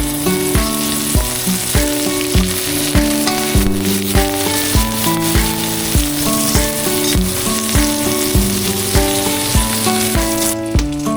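Food sizzling as it fries in a pan, a steady hiss that drops away near the end, under background music with a steady beat.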